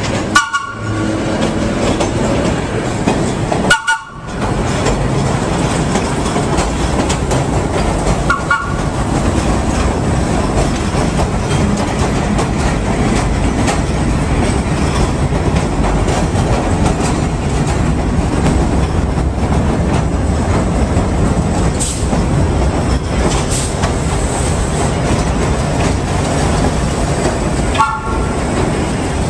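Vintage R1-9 subway train running loud and steady, its horn sounding short toots twice near the start, once about eight seconds in and once near the end.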